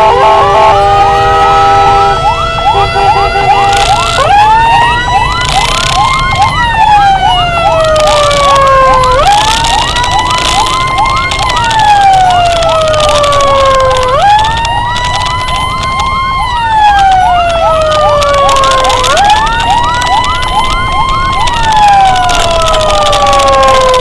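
Emergency sirens: a two-tone hi-lo siren alternates at the start, then a wailing siren rises quickly and slowly falls about every five seconds, with a fast yelping siren over it. The two-tone alternation returns near the end, over road and engine noise.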